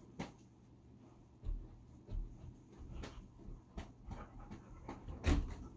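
Scattered light knocks and a few dull thumps from dogs and a person moving about on and around a bed, the loudest thump near the end.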